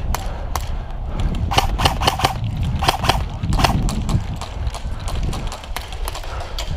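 Airsoft guns firing during a game: a run of sharp, irregular pops, some in quick clusters around the middle, over a low rumble.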